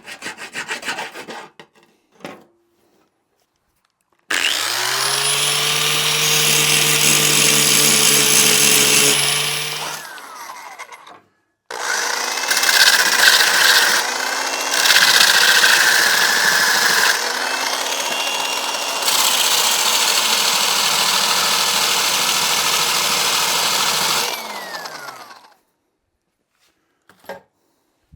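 Electric grinder grinding down weld bead on a steel lawn mower part. It opens with a couple of seconds of quick scraping strokes. The motor then spins up about four seconds in, runs for about six seconds and winds down. It starts again, runs about thirteen seconds with its pitch dipping as it is pressed onto the metal, and winds down near the end.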